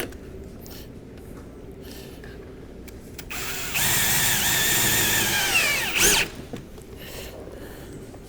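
Power drill driving a screw: about three seconds in, the motor runs at a steady whine for under three seconds, then winds down with its pitch falling as it stops.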